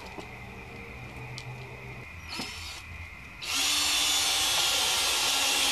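Cordless drill driving a screw into a wooden frame board: a brief blip about two and a half seconds in, then the motor runs steadily from about three and a half seconds in.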